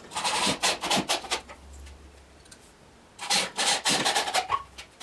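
Corded electric drill working into plywood, boring or driving screws to fix a back plate, with the scraping, rasping sound of the bit or screw in the wood. It comes in two bouts of short pulses, one at the start and one from about three seconds in.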